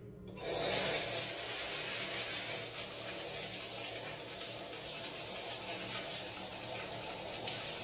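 Shower head spraying water steadily, splashing onto a plastic soap dish and tiled wall; the spray starts about half a second in.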